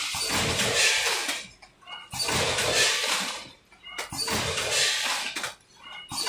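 Vertical form-fill-seal gusset bag packing machine running through its bagging cycle about once every two seconds: each cycle is a hissing rush of noise lasting over a second, followed by a short lull with a brief high tone and a sharp click.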